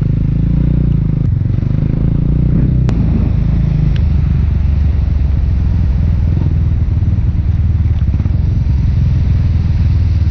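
KRY 200 motorcycle engine running as the bike rides along, under a steady low rumble of wind on the microphone.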